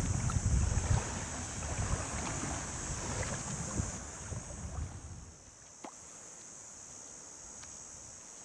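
Wind buffeting the microphone over the wash of sea waves on the beach. It dies down about five seconds in, leaving a faint steady high hiss, with a single click near the end.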